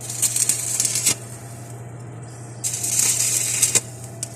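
Electric arc welding on a vehicle chassis: two bursts of crackling and sizzling, each about a second long, one at the start and one about two and a half seconds in. A steady low hum runs underneath.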